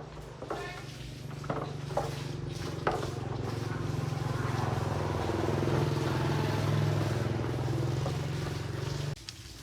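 A rebuilt engine running steadily, rising a little in the middle, then shut off abruptly near the end. A few sharp knocks sound in the first three seconds.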